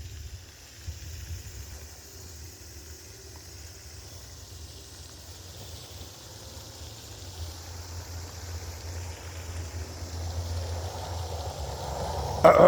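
Low rumble of a motor vehicle's engine, slowly growing louder toward the end as it draws nearer.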